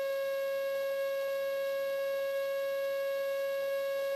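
A steady, unchanging high electronic whine with a stack of evenly spaced overtones, carried on the light aircraft's headset intercom audio.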